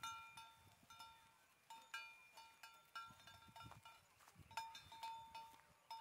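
Faint, irregular clinking of a bell on a grazing cow: light metallic strikes, each with a short ringing tone at the same pitch, a few times a second at uneven intervals.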